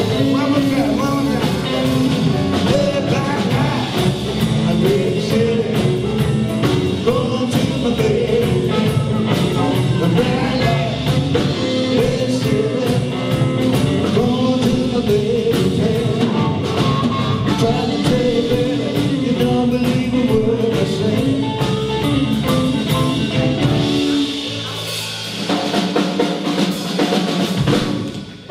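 Blues band playing live, with drum kit and guitar. About 24 seconds in, the busy playing gives way to a held chord that fades out near the end.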